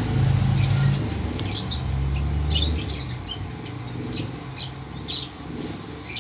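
Lovebirds chirping: many short, sharp high calls in quick irregular succession, over a low background rumble that is loudest in the first three seconds.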